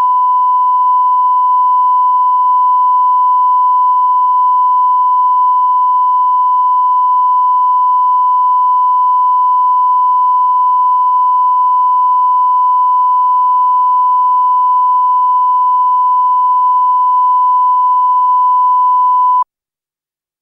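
Steady single-pitched test tone, the reference tone that runs with colour bars at the head of a broadcast tape. It cuts off suddenly about a second before the end.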